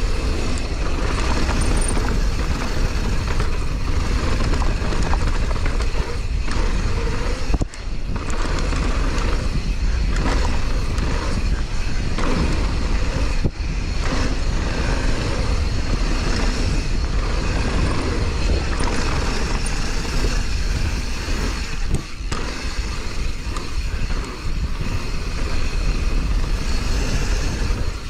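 A downhill mountain bike descending a dirt trail: a steady rush of wind on the microphone with tyre and bike rattle underneath, dipping briefly a few times.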